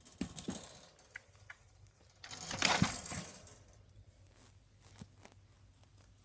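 Rustling and crackling of litter and hay in a pet's cage as the animal moves about in its litter tray, with scattered small clicks. The loudest rustle comes about two and a half seconds in.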